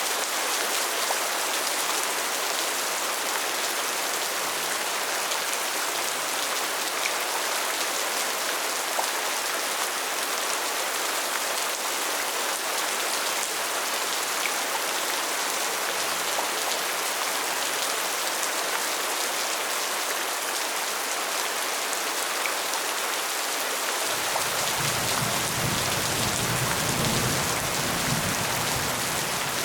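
Steady rain falling, an even hiss of drops on surfaces; a low rumble comes in near the end.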